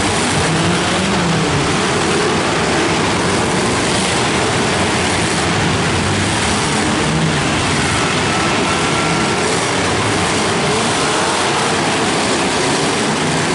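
Engines of many demolition derby cars running and revving at once, a steady loud din inside an indoor arena.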